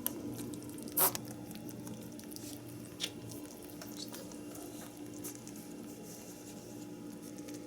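Rabbit licking up liquid medicine: a run of small wet ticks, with a sharp click about a second in and a smaller one near three seconds.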